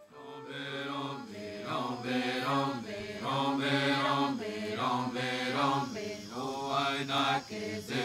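Chanting voice singing a repeated melodic phrase in a low register, the notes sliding downward at the end of each phrase.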